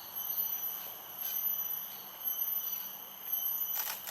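A high-pitched insect drone, steady in pitch, swelling and fading about once a second, with a few short clicks near the end.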